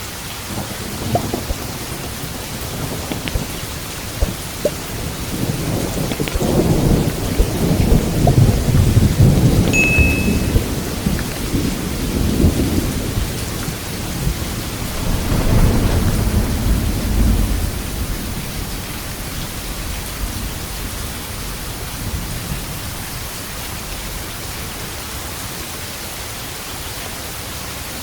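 Steady rain with a long rolling thunder rumble that builds about five seconds in, swells several times, and dies away over the last third.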